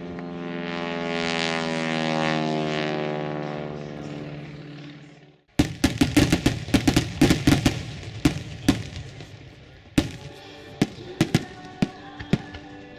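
An aerobatic biplane's engine drones steadily, swelling louder and then fading. About five and a half seconds in it cuts off abruptly into fireworks: a rapid volley of sharp bangs and crackles that thins to scattered bangs near the end.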